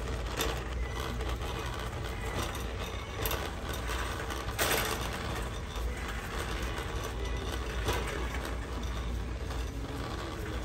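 Wire shopping cart rattling and clicking as it is pushed over a smooth concrete floor, with a louder clatter about halfway through, over a low steady hum.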